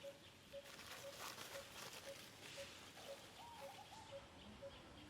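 Faint outdoor ambience with a bird repeating one short note about twice a second, and a quick run of chirps about three seconds in.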